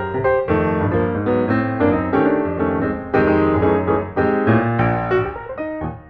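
Background piano music: a steady stream of notes and chords.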